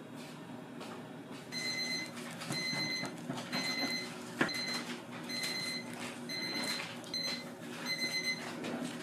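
An electronic timer or appliance beeper sounding repeatedly: about ten short, high-pitched beeps, roughly one every 0.7 seconds, starting about a second and a half in. A single sharp click comes about halfway through.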